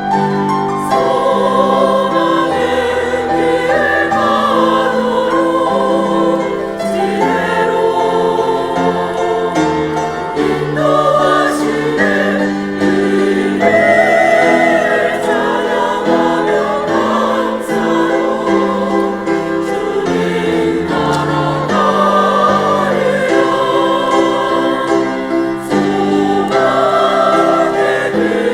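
Church choir singing a Korean hymn in full, sustained chords.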